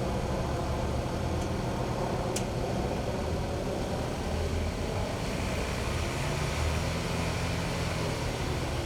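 Steady rumble of heavy diesel equipment running at a construction site, with a single sharp click a couple of seconds in and a low engine hum coming in past the middle.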